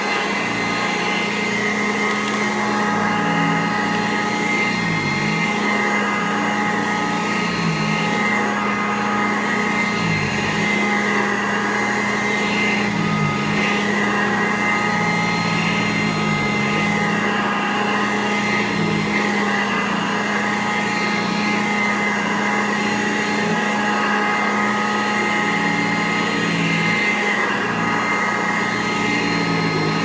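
Sanitaire SC887 commercial upright vacuum cleaner running steadily on carpet with a motor whine. Its pitch dips briefly every few seconds.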